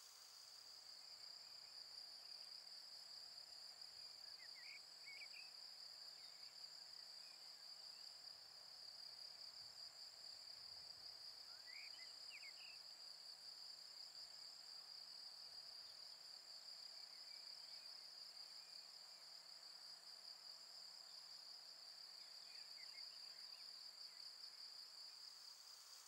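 Faint, steady high-pitched chirring of insects, typical of crickets singing in grassland. A few brief faint chirps come through about five, twelve and twenty-three seconds in.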